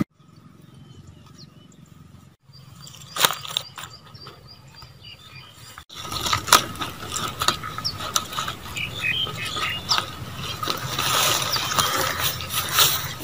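Crackling, rustling and sharp clicks of charred, dried banana-leaf wrappings and their tie strips being handled and pulled open on a woven basket tray. Sparse at first, much busier from about six seconds in.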